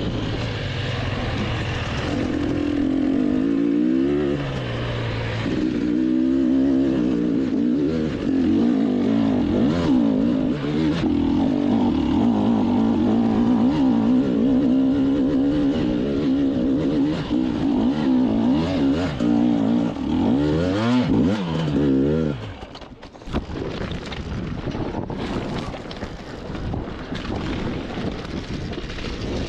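GASGAS EC 300 two-stroke enduro motorcycle engine, heard from on board, running at low, wavering revs with a few quick throttle blips. About three-quarters of the way through, the engine note drops away sharply, leaving mostly a rough rushing noise.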